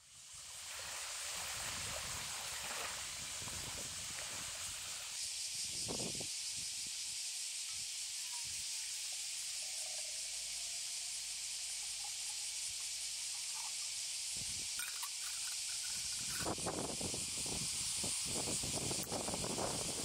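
A steady high hiss that grows brighter about five seconds in, with a few soft knocks and clinks in the last few seconds.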